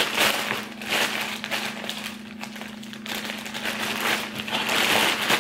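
Plastic poly mailer bags crinkling and rustling in irregular bursts as they are pulled open and handled, over a faint steady hum.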